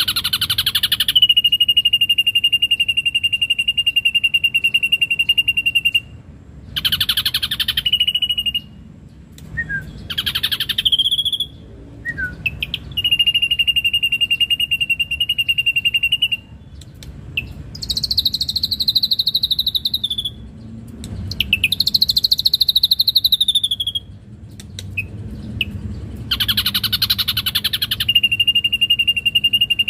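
Ashy drongo singing: long, fast, even trills held at one pitch for several seconds at a time, broken by short harsher bursts, with two higher trills in the middle that dip slightly in pitch at their ends.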